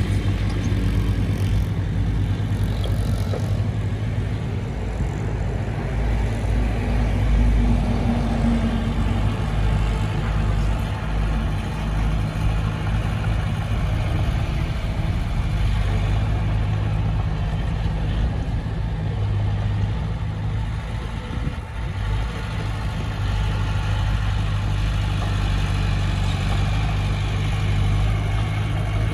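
Diesel engine of heavy earthmoving equipment running steadily with a deep, even hum.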